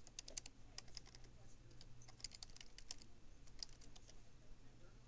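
Computer keyboard being typed on: faint, quick, irregular key clicks in short runs with brief pauses, as an email address is entered.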